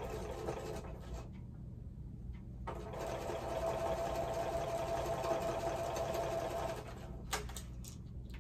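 Sewing machine stitching a seam, joining a thin fabric strip to quilt pieces: a short run at the start, a pause, then a steady run of about four seconds. A single sharp click follows near the end.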